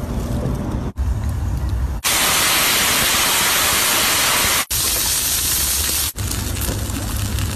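Loud, even hissing of steam from a foil pan heating over an open fire, starting about two seconds in and lasting about four seconds, slightly weaker after a break partway. Before it, wind rumbling on the microphone between quick cuts.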